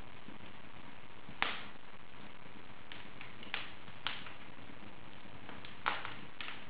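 Wood fire burning in an open fireplace, crackling: a steady soft hiss with sharp pops and snaps, the loudest about a second and a half in and again near the end, with a few smaller ones between.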